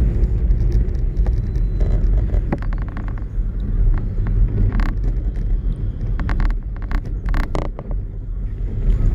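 Wind buffeting the microphone in a steady low rumble, with scattered short clicks and knocks from handling the fish and tackle.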